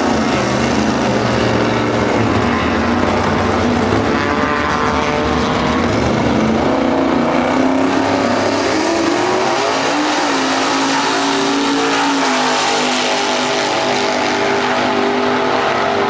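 Two drag-racing street cars, a black Chevelle and a white Chevrolet wagon, running their engines hard at the starting line, the engine notes rising and falling as they rev, then launching and accelerating away down the track in the last few seconds.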